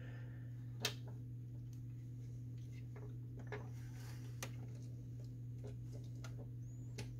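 A few faint, sharp clicks and taps of the printer's plastic document-feeder pickup roller parts and spring being handled and fitted back together by hand, the clearest about a second in, over a steady low hum.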